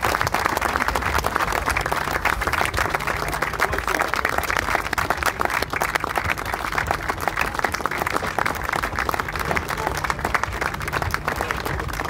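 Steady applause from a crowd of players and spectators clapping their hands.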